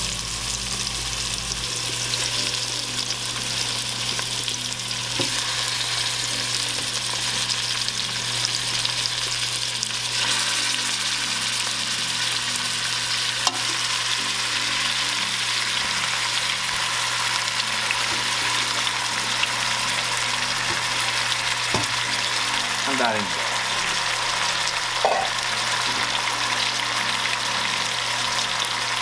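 Goat meat browning with onion and garlic in a pot, sizzling steadily, with a few faint knocks along the way.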